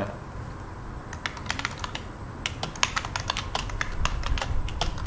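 Typing on a computer keyboard: a run of irregular, quick key clicks starting about a second in.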